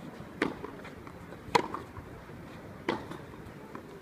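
Tennis ball struck back and forth with racquets in a baseline rally on a clay court: three sharp hits, roughly a second and a quarter apart.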